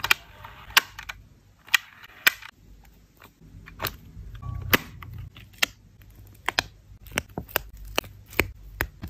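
About a dozen sharp plastic clicks and taps at irregular intervals as a clear-plastic portable cassette player is handled and its control buttons are pressed.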